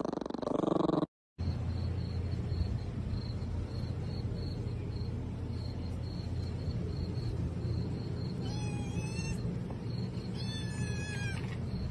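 A kitten meows twice near the end, each call sliding down in pitch, over a steady low hum. A short, louder sound at the very start cuts off abruptly about a second in.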